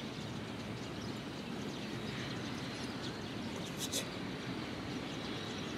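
Steady outdoor background noise with faint bird chirps, and one sharp click about four seconds in.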